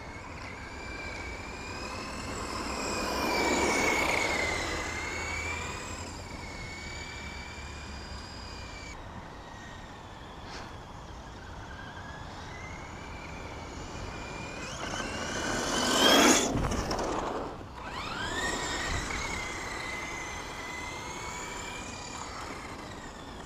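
Electric RC truck (Red Cat Racing Volcano EPX on a 2S LiPo) driving, its motor and gears whining with the pitch rising and falling as the throttle changes. The whine swells louder about 4 s in and again around 16 s, the loudest moment near 16 s.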